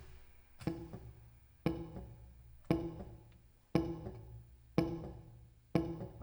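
Six sharp percussive strikes about a second apart, each ringing briefly with a low pitched tone and fading before the next.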